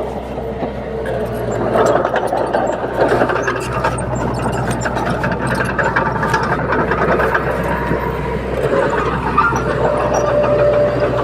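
Komatsu D30P crawler bulldozer's diesel engine running steadily, with scattered metallic clicks and clanks over the engine noise.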